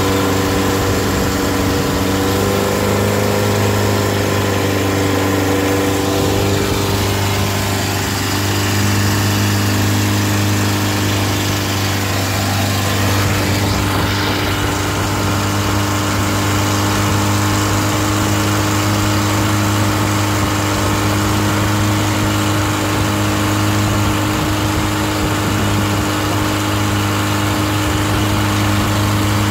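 Unmuffled car-type engine mounted on the stern of a long-tail river boat, running steadily under way, with a slight waver in pitch in the first few seconds. A steady rush of water and spray from the propeller runs under the engine's hum.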